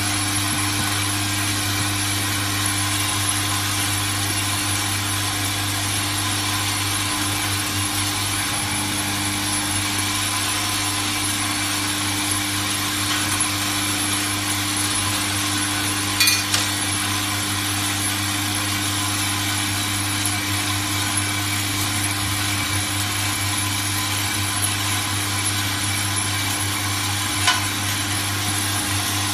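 Automatic bolt-and-washer assembly machine running with a steady mechanical hum and hiss. Two short metal clinks, one about halfway through and one near the end.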